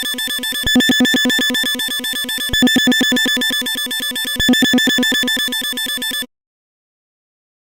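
Electronic alarm tone pulsing fast and evenly, swelling in loudness about every two seconds. It cuts off abruptly about six seconds in.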